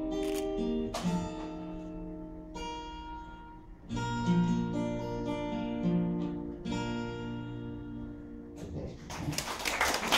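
Acoustic guitar playing the closing chords of a song, each strummed chord left to ring for a second or so. Near the end the audience starts to applaud.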